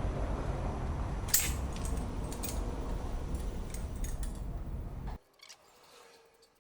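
Metal tools and parts clinking and tapping while a spring compressor is worked on a car's front suspension strut, with one sharper clink about a second and a half in. A steady low rumble runs underneath and cuts off abruptly about five seconds in, leaving only faint clicks.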